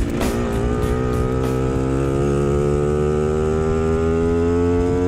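Simson S53E moped's two-stroke engine accelerating, its pitch rising slowly and steadily as it revs up.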